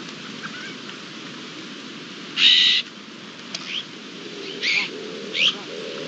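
Iberian magpies calling: one loud, harsh, rasping call a little before halfway, then a few short rising call notes. In the second half a European turtle dove starts its low, purring coo in repeated pulses, over a steady background hiss.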